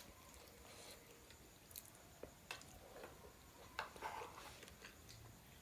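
Faint, quiet chewing of pork momos, with a few soft mouth clicks now and then; otherwise near silence.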